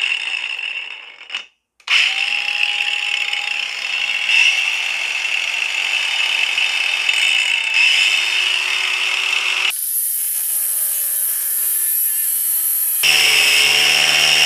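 Cordless brushless 125mm angle grinder cutting a steel shaft at full speed. It runs about a second and a half and cuts out, is restarted, and runs on. From about ten seconds in the cut gets louder and harsher, with the motor pitch sinking under load. The cutting out is what the owner takes for a heat or safety cutoff on the motor or battery.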